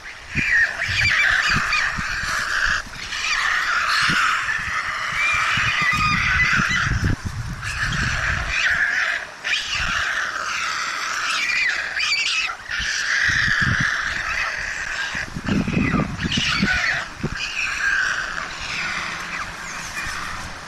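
White stork nestlings begging: a nearly continuous chorus of wavering, squealing calls from several chicks, with irregular low thumps and rumbles mixed in.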